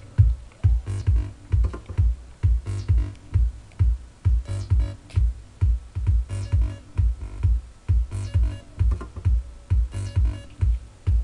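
Homemade breadboard synthesizer built on a PIC18F microcontroller, playing an electronic drum-machine-style loop. Low thumping pulses come about two to three times a second, and a falling high sweep recurs about every two seconds.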